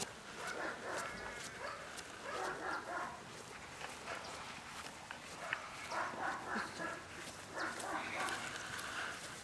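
A dog whining in several short, high-pitched bouts during heelwork.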